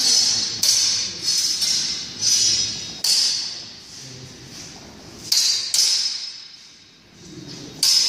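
Steel feder training longswords clashing in sparring: sharp metallic clangs that ring briefly, several in quick succession in the first three seconds, then two more a little after five seconds and one near the end.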